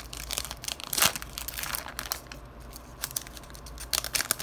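A foil trading-card pack being torn open and crinkled by hand. Dense crackling, loudest about a second in, thins out to lighter crinkles, with a few sharper ones near the end.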